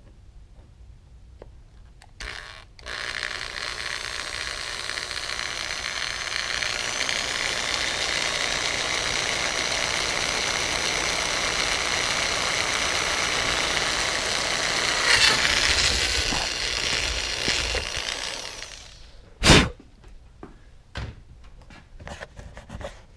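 A small electric power tool runs for about fifteen seconds, its whine climbing as it comes up to speed and then holding steady, with a short surge near the end before it winds down; it is cutting into the top heat shield. A single sharp knock follows a second later, then a few light clicks of handling.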